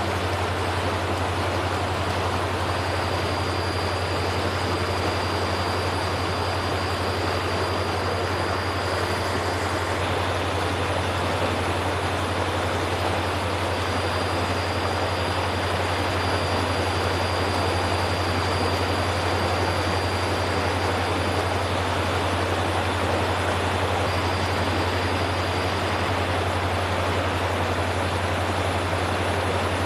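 Steady rushing noise over a constant low hum, unchanging throughout, with a faint high whine that comes and goes.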